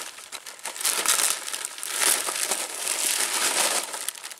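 Crinkling of a large clear plastic bag and the foil snack packets inside it as they are shaken out onto the grass. It starts about a second in and lasts until shortly before the end.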